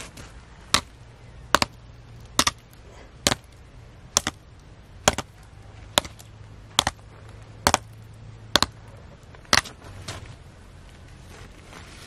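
Eleven sharp chopping blows at a steady pace, a little under one a second, some with a quick second knock, stopping about ten seconds in.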